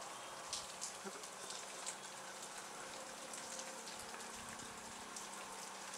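Steady rain falling in a thunderstorm, with many scattered sharp drop ticks close by.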